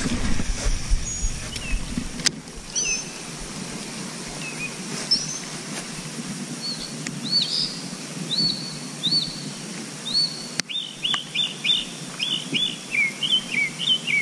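Small birds chirping: a string of short, evenly spaced high chirps about every half second from midway, then a quicker run of lower chirps near the end, over a low steady rumble.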